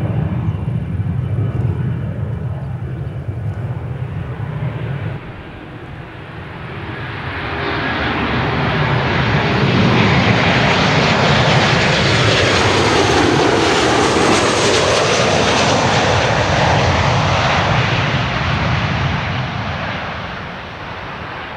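A business jet's engines rumble low at first and fade away. Then the jet engines of a Boeing 737-800 on final approach swell to a loud pass close overhead, sweeping down in pitch, and fade away as the airliner lands.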